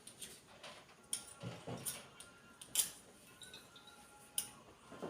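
Faint, scattered clinks and taps of kitchen utensils against dishes, about five light knocks spread unevenly.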